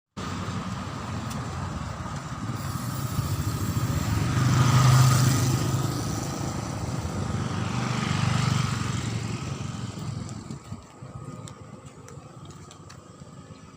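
A motor engine running, growing louder twice, about five and eight seconds in, then fading away.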